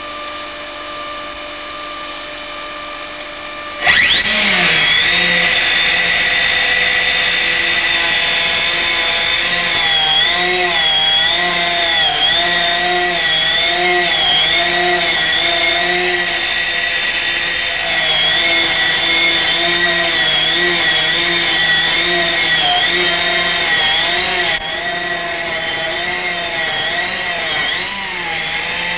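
A stone-cutting saw on a hydraulic cutting machine. It hums steadily at first, then about four seconds in it starts a loud, steady whine, as it would when the blade cuts into a stone slab. The pitch wavers up and down through the cut, and the level eases slightly a few seconds before the end.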